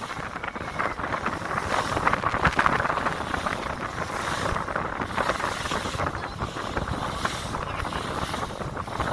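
Steady, rough noise of wind buffeting the microphone, a low rumble with a fluctuating hiss over it.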